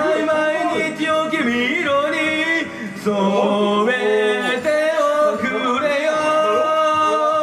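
A man singing karaoke into a microphone over a backing track, with long, wavering held notes.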